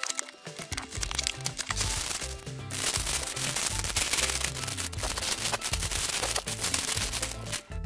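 Clear plastic bags full of LEGO bricks crinkling and crackling as they are handled, loudest from about three seconds in until just before the end, over background music.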